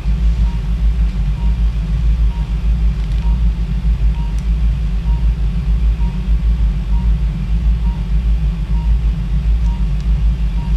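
Operating-room equipment during arthroscopic shoulder surgery: a steady low rumble, with a short quiet beep repeating about twice a second.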